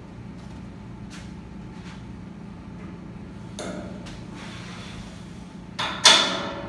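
Metal clank of the Cybex FT325's adjustable pulley carriage being slid up its steel column and locking into place, one sharp loud clank with a short ring about six seconds in. Before it, a few faint knocks over a low steady hum.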